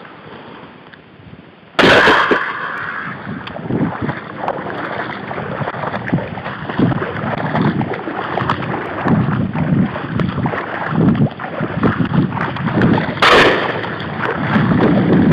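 Someone wading through wet marsh grass and shallow water: swishing stems and sloshing underfoot in irregular steps, with wind on the microphone. A sudden loud burst of noise comes about two seconds in, and another near the end.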